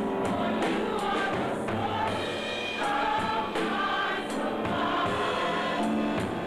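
Gospel choir singing, with held notes from several voices.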